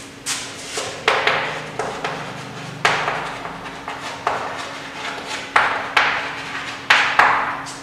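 Chalk writing on a blackboard: about a dozen irregular short strokes as the chalk taps and scrapes across the board, each starting sharply and fading quickly.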